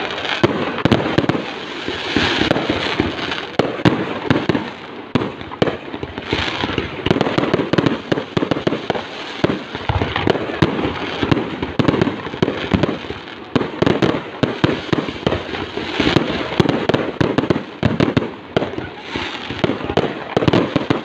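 Fireworks display: a dense, continuous barrage of aerial shell bursts, bangs and crackling, many sharp reports a second throughout.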